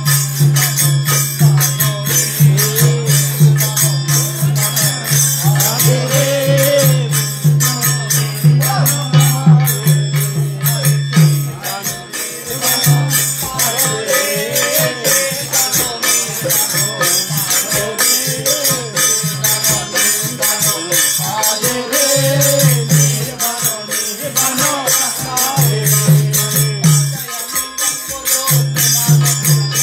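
Group singing a Buddhist kirtan to harmonium, a barrel-shaped hand drum and small hand cymbals, the cymbals keeping a fast, steady jingling rhythm. A low held note drops out about twelve seconds in and comes back near twenty-two seconds.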